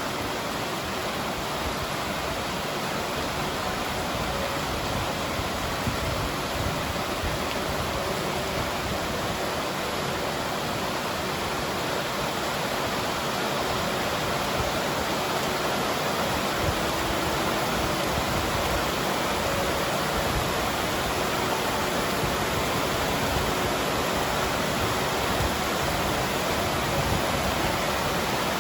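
A steady rushing noise with no breaks, holding the same level throughout.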